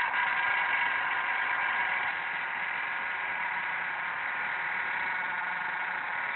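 MacBook Pro's left cooling fan running with a steady whirring whine made of several high tones, a little quieter from about two seconds in: the abnormal noise of a fan close to dying.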